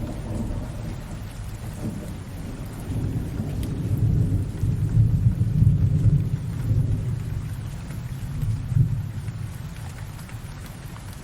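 Rain falling steadily under a long, low rolling rumble of thunder that builds about four seconds in, swells again near nine seconds and fades away toward the end.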